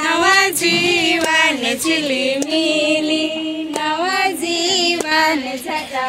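A single high female voice singing a slow, sliding melody with long held notes, with no instruments heard beneath it.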